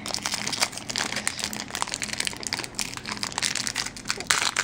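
Packaging of a trading-card pack crinkling and crackling in hands as it is opened, a dense run of small irregular crackles.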